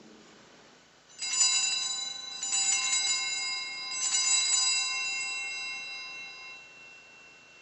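Altar bells rung three times, about a second and a half apart, marking the elevation of the chalice at the consecration. Each ring jingles briefly and then fades slowly, the last dying away near the end.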